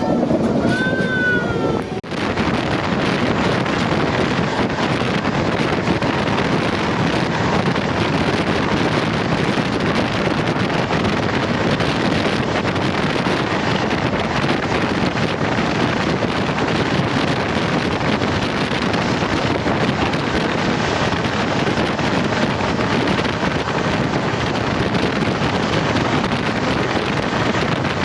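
Steady rushing noise of a train running at speed, mixed with wind buffeting the microphone.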